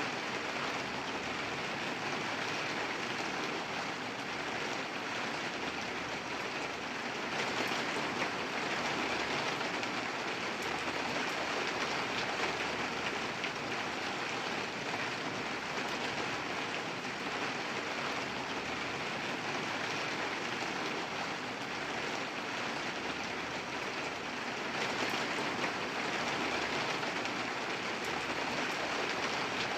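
Steady rainfall: a continuous even hiss of rain with dense pattering drops, growing a little heavier about seven seconds in.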